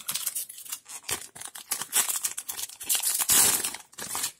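A foil trading-card booster pack being torn open by hand, crinkling and crackling with many small sharp ticks, loudest about three seconds in.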